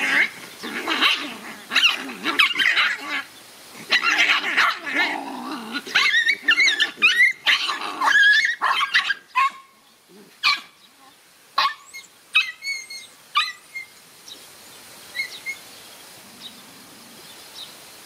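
Puppies play-fighting: a busy run of yips, barks and growls for most of the first half, thinning to a few single yaps, then dying away.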